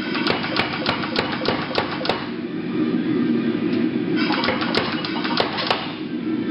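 Big Blu air power hammer striking a red-hot square steel bar in an even run of blows, about three a second. The blows stop for about two seconds, then a second short run follows, tapering the bar end flat.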